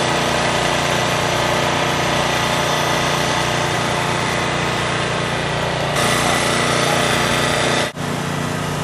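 Two-stroke racing kart engine running at a steady speed, a continuous buzz that does not rev up or down. It gets a little brighter and louder about six seconds in, and drops out for an instant near the end.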